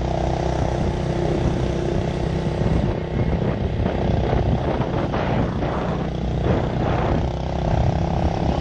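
Motorcycle engine running steadily on the move, under a rushing noise of the ride.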